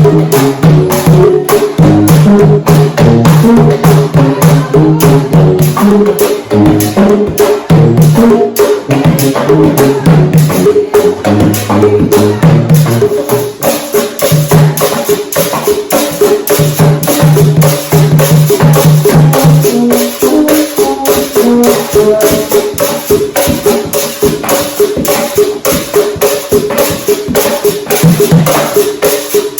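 Hand-drum and percussion music: a fast, dense pattern of strokes with shaker- and wood-block-like clicks, over low pitched notes that change every few seconds.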